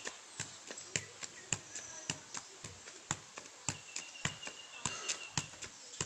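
A steady run of sharp taps or knocks, about two a second, evenly spaced.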